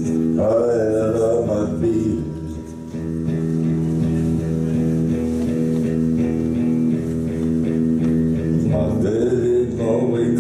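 Live rock band playing an instrumental passage: electric guitar and bass holding sustained notes. Wavering, gliding phrases rise over it shortly after the start and again near the end.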